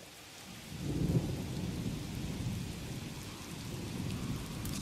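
Steady rain with a low rumble of thunder that swells about a second in and rolls on under it.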